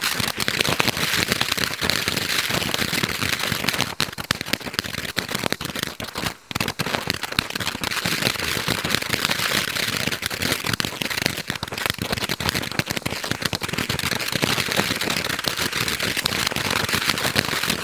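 Nico Europe CO2-neutral ground firework fountain burning: a continuous hissing spray of sparks with dense crackling, briefly broken about six seconds in.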